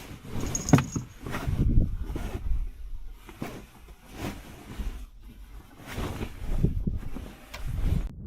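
Wind buffeting the microphone in uneven gusts of low rumble, with scattered knocks and rustles.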